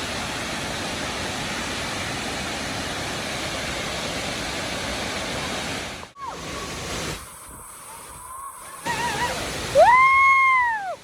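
Waterfall roaring as a steady rush of water. About six seconds in it cuts off abruptly and quieter sound follows. Near the end comes a loud pitched tone that rises, holds and falls away.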